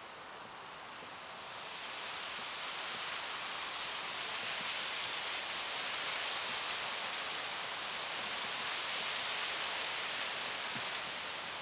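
Steady outdoor rushing hiss with no distinct events, swelling about a second and a half in and then holding level.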